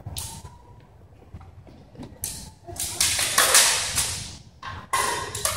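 Sounds of a cut-and-thrust sword bout: a series of short, harsh bursts, the loudest and longest about three seconds in, fading away.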